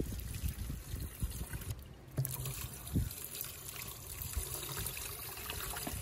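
Salt brine being poured from a bowl through a mesh strainer onto meju blocks in an earthenware crock, trickling steadily.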